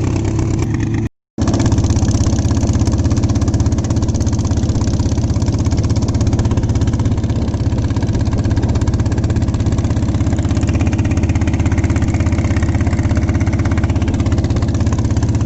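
Fishing boat's engine running steadily at idle with a fast, even chugging pulse, broken by a short gap of silence about a second in.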